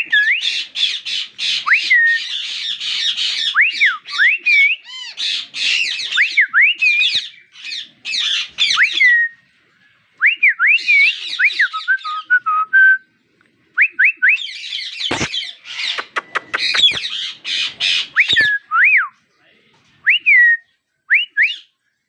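Indian ringneck parakeets chattering and squawking, with sharp whistled notes that rise and fall, in bursts with short pauses. A few soft knocks come about two-thirds of the way through.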